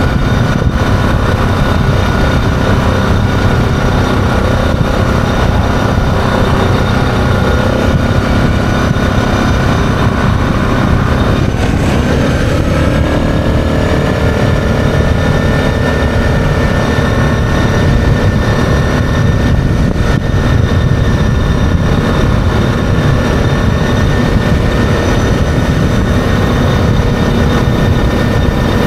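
ATV engine running steadily while riding at speed, its pitch shifting briefly about twelve seconds in before settling again.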